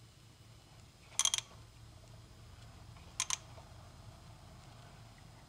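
Ratchet clicking in two short bursts, about a second in and again near three seconds, as it is swung back between small tightening strokes on a plastic hydro filter cap.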